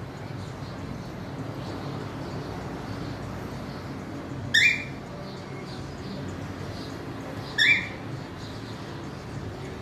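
A cockatiel giving two short, loud rising calls about three seconds apart, over a steady low background noise.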